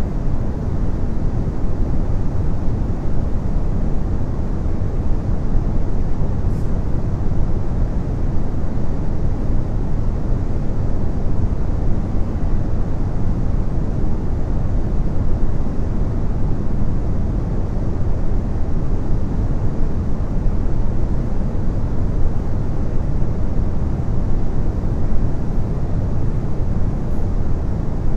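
A steady, even low-pitched noise with no voices or distinct tones.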